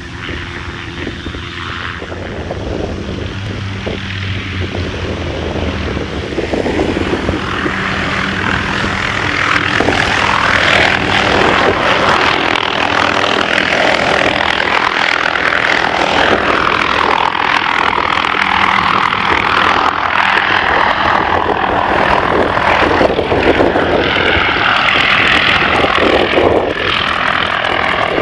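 Hughes 500 helicopter's rotor and turbine engine running. The sound grows louder over the first ten seconds or so, then holds steady and loud.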